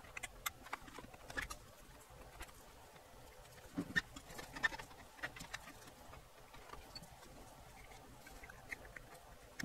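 Faint, scattered clicks and rustles of wiring harness cables being handled and pressed into a soundbar's plastic chassis, a little busier around four to five seconds in.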